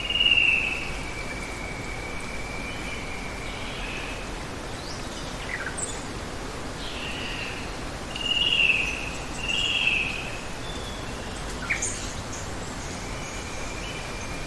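Steady hiss of running water under bird calls: swelling high whistled notes at the start and twice in the middle, the loudest sounds, with a few short falling chirps. A thin, steady high insect drone runs through the first few seconds and comes back near the end.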